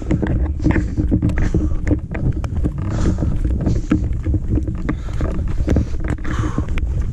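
A runner's footfalls and trekking-pole strikes on a dirt forest trail, a quick run of short knocks in running rhythm, over a heavy rumble of wind and movement on the camera microphone.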